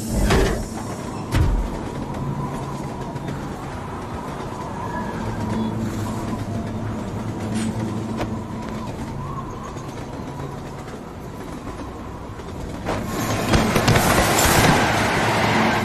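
Passenger train running at speed: a steady rumble and wind rush through an open door, with a couple of sharp knocks in the first second or so. Near the end the train rushes loudly past.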